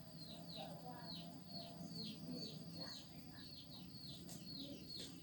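Faint bird chirping: a steady run of short, quick falling chirps, several a second.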